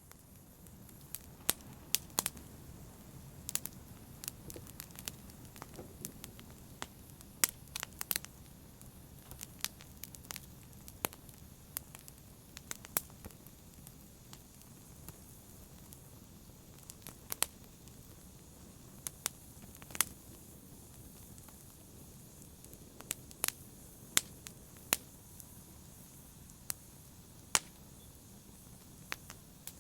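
Fire crackling in a fireplace: a low steady rumble of flames with irregular sharp pops and snaps.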